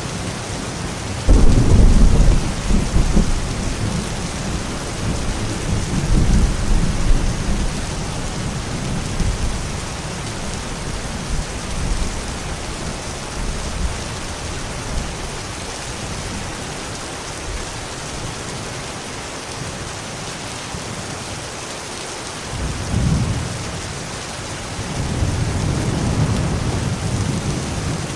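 Thunderstorm: steady heavy rain with rolling thunder, a sharp clap about a second in that rumbles on for several seconds, and another long rumble building near the end.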